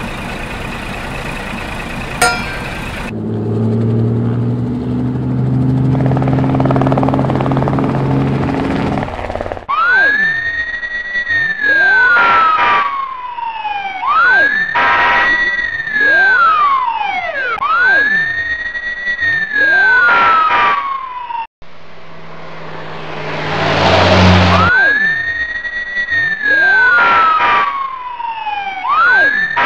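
Fire-engine siren wailing, each cycle rising quickly and falling slowly, about every three and a half seconds, with an echoing overlap. It follows several seconds of a low, steady truck engine. The siren breaks off once, near the two-thirds mark, for a few seconds of engine and a short hiss, then starts again.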